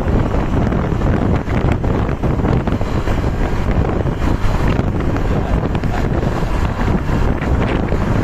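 Heavy wind buffeting the microphone over a steady low rumble of vehicle engines and road noise, with no horn sounding.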